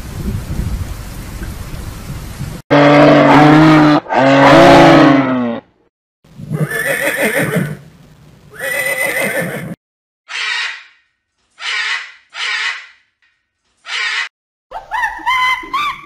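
A steady hiss for the first couple of seconds. Then a horse whinnies loudly twice, each call falling in pitch at the end, followed by several shorter, breathier horse calls with gaps between them. Near the end comes a quick run of short, high, pitched calls.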